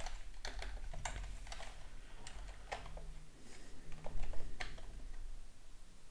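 Typing on a computer keyboard: irregular keystrokes while code is being entered.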